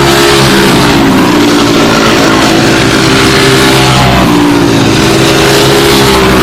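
Four-stroke racing go-kart engines running at high revs, several at once, their pitch falling and then climbing again about four seconds in as the karts slow and accelerate.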